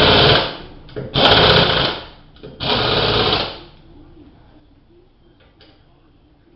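Power wrench spinning a wheel's lug nuts down in three short bursts, each under a second long, with short pauses between them, then stopping about three and a half seconds in.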